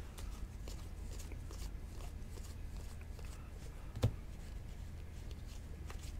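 Faint flicks and rustles of baseball trading cards being thumbed through by hand, with one sharper tap about four seconds in, over a steady low hum.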